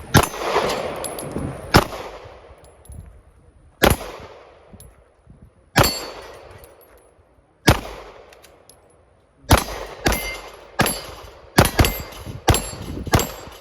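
Glock 48 9mm pistol firing: about five shots spaced roughly two seconds apart, then a quicker string of about eight, with a metallic clang from hits on steel targets.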